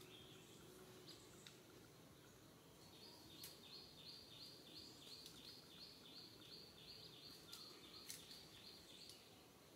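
Quiet outdoor background with a faint high chirping that starts about three seconds in and repeats about three times a second, with a few faint clicks.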